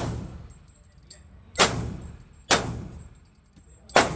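Four pistol shots from a Glock 23 in .40 S&W, fired at an uneven pace: one right at the start, then one about a second and a half in, a quick follow-up, and a last one near the end. Each crack is sharp and loud, with a brief ringing echo off the walls of an indoor range.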